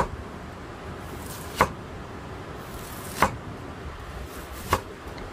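Steel cleaver chopping down through bamboo shoot onto a wooden chopping block: four sharp knocks, about a second and a half apart.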